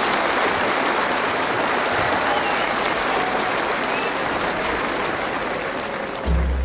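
Steady applause from an audience, a dense clapping that eases off slightly toward the end, with a low note coming in just before it ends.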